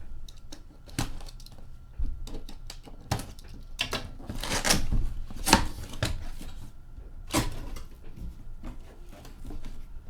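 Cardboard box and packaging being handled and opened: irregular clicks and knocks, with a few louder scraping, rustling strokes around the middle.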